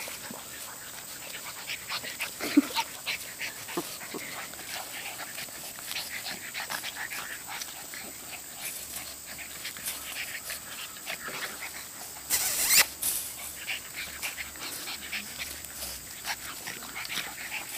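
Boston terrier–English bulldog cross puppies play-fighting: scattered short snorts, grunts and scuffles, with a brief louder rush of noise about twelve seconds in.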